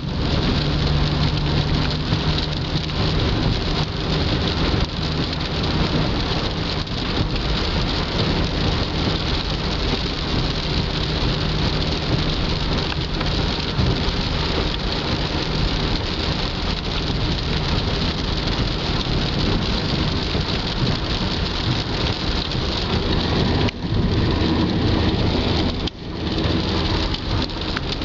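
Heavy rain drumming on a car's windshield and roof, heard from inside the cabin over steady tyre noise on a wet road and engine hum. The sound is steady, with two brief dips near the end.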